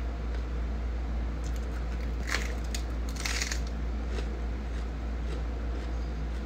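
Crisp lettuce leaf being bitten and chewed: a few short crunches between about one and a half and three and a half seconds in, over a steady low hum.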